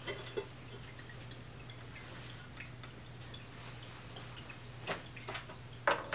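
Water from the faucet-shaped spout of a battery-powered ceramic pet drinking fountain trickling and dripping steadily into its bowl. A few light taps and clicks come near the end.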